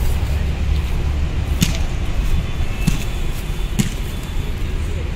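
Volleyball being hit three times in a rally: sharp slaps roughly a second apart, over a steady low rumble.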